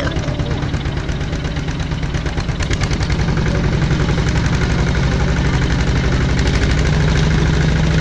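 Two-wheel walking tractor's single-cylinder diesel engine running at a steady, rapid beat as it tows a loaded trailer over a dirt track. It grows louder about three seconds in.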